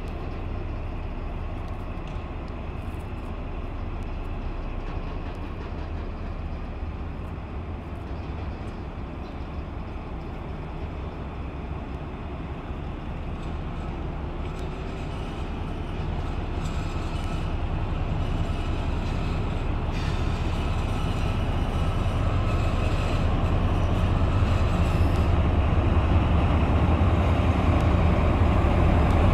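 MÁV class 418 (M41) diesel-hydraulic locomotive's engine running steadily as it approaches, the low drone growing louder through the second half until the locomotive is close by.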